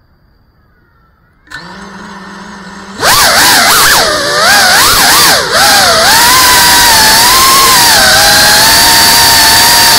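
Brushless motors and propellers of a GEPRC CineLog 35 cinewhoop quadcopter: they spin up at idle with a low hum about a second and a half in, then throttle up for takeoff about a second later into a loud whine. The whine swings up and down in pitch for a few seconds as the throttle changes, then holds fairly steady in flight.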